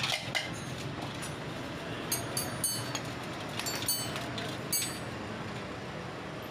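A stiff brush scrubbing greasy motorcycle parts in a basin of dirty cleaning liquid, with about five sharp, ringing metal clinks between two and five seconds in as the parts knock together. A steady background noise runs underneath.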